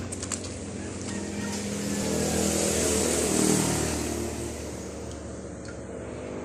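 Engine noise of a passing motor vehicle, swelling to its loudest about three seconds in and then fading, over a steady low engine hum.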